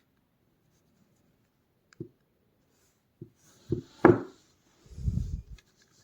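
Handling noises of an object being moved: a faint click, then a few knocks with the loudest about four seconds in, followed by a short low rubbing rumble.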